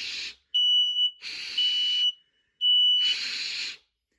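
Home smoke alarm going off in a repeating beep pattern: a clean, high, steady beep of about half a second, alternating with louder, harsh blasts.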